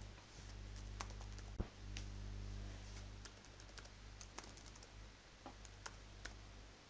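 Computer keyboard typing: scattered, irregular keystrokes with a short quicker run in the middle and one sharper click about one and a half seconds in.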